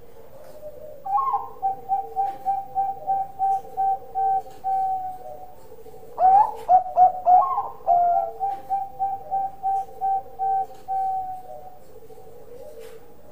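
Bangkok-type zebra dove (perkutut) cooing its song: two phrases, each opening with a few louder notes and running on in a fast even string of short coos whose last notes draw out longer.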